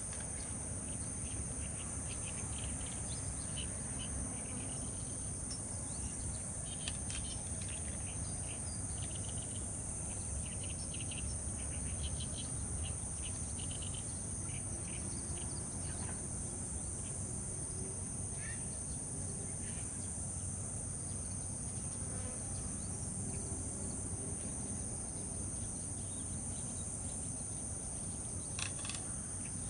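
A steady, high-pitched chorus of insects, with a pulsing layer that switches on and off every second or so, and a few short chirps.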